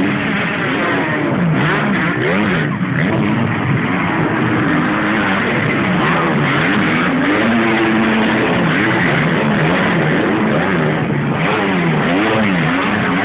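Several motocross bikes racing past, their engines revving up and down over and over as the riders open and close the throttle and shift through jumps and corners.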